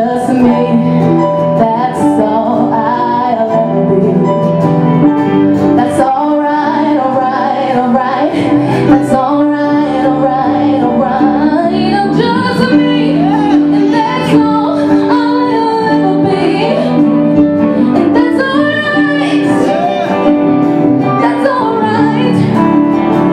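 A woman singing a song live with a band: her own strummed acoustic guitar, an electric guitar and a bass guitar play under her voice without a break.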